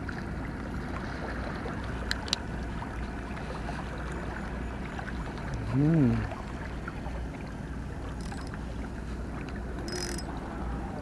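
Steady low drone of a running boat engine over the water, with a constant wash of water and background noise. A couple of faint clicks come about two seconds in, and a brief voice-like hum rises and falls about six seconds in.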